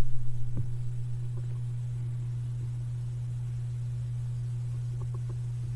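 A steady low hum, with a few faint clicks and rustles near the end as a cloth face mask is taken off.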